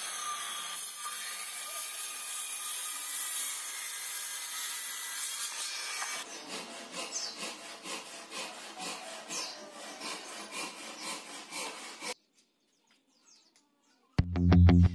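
Maktec MT583 7-1/4-inch circular saw cutting through a thick wooden beam, a steady dense rasp with a faint motor whine for about six seconds. Then about six seconds of irregular scraping strokes, which stop suddenly. Music starts near the end.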